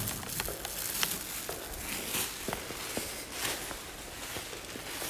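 A plastic sack liner and a plastic glove crinkle while dry loose green tea leaves rustle as a handful is scooped out. Scattered light clicks run through it.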